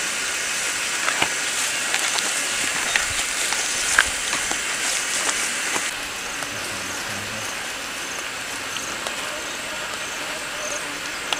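Steady hiss of open-air field ambience on the camera microphone, with scattered light clicks; it drops a little quieter about six seconds in.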